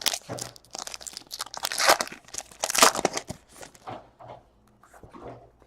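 Trading-card pack wrapper being torn and crinkled, with sharp crackling bursts for the first three and a half seconds, loudest about two and three seconds in, then lighter handling sounds.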